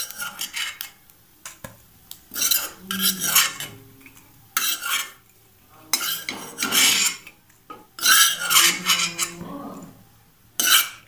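Metal spoon scraping fried grated coconut around the inside of a kadai and clinking against metal. It comes in about six short bursts of scraping.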